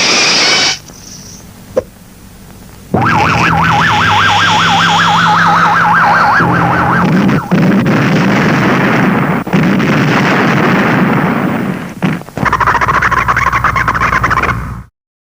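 Sci-fi film sound effects in succession: a burst of noise, then a rapidly warbling electronic tone like a siren over a rumble, a stretch of rushing noise, and another quicker warble that cuts off suddenly near the end.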